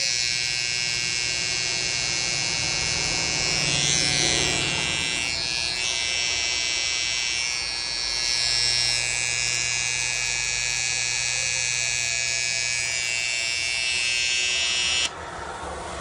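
TPOB X cordless hair trimmer with a gold Psycho T-blade running at full speed for a sound test: a steady, high electric buzz. It is switched off about a second before the end.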